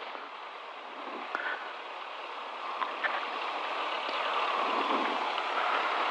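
Cabin noise of a Diamond DA20 Eclipse rolling on the runway after landing: the engine at low power and the airflow blend into a steady hiss, growing slightly louder, with a couple of faint clicks.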